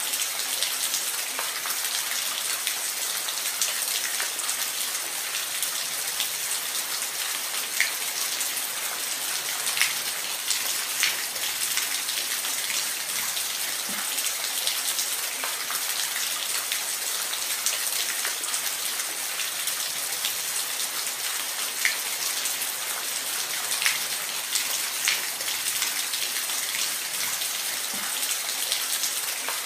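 Waterfall: a steady, even hiss of falling water, with scattered splashing drops ticking through it now and then.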